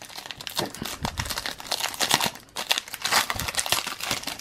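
Foil trading-card pack wrapper being crinkled and torn open by hand, an irregular run of crackling and rustling.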